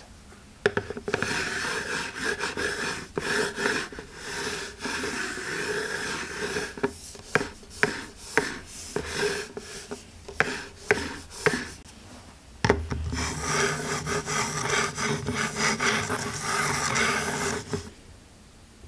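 Apple Magic Mouse 2 being slid back and forth on a hard desk surface: its bottom scrapes and rubs, with sharp ticks as it is pushed in quick strokes. Later it is swapped for the mouse fitted with a Solumics case and glide nubs, which scrapes about as loud, with a slightly changed, fuller timbre.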